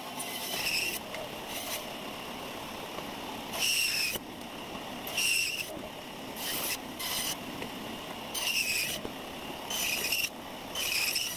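Small band saw running and cutting resin-filled pine knotwood in short passes. Each pass is a brief high-pitched whine over the steady hum of the saw, repeating every second or two.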